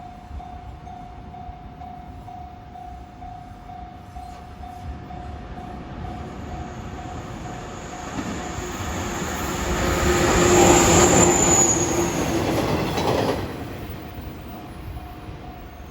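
A level crossing warning bell rings in even pulses while a 413 series electric multiple unit approaches and passes over the crossing. The train's rumble builds to its loudest about two-thirds of the way in, with a high wheel squeal, then fades. The bell is heard again once the train has gone.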